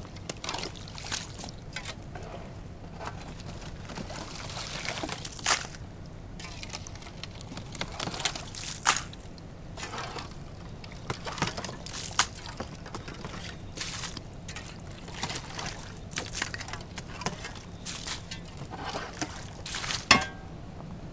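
Water sloshing and trickling with irregular knocks and clinks of broken ice in the horses' frozen-over water trough as it is cleared.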